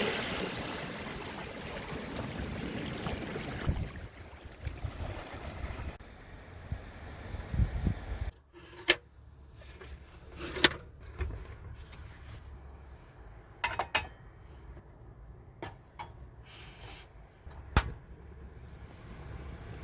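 A steady rushing outdoor noise for about eight seconds, which stops suddenly. After it, in a quieter stretch, come several sharp clicks and knocks a second or two apart, like something being handled.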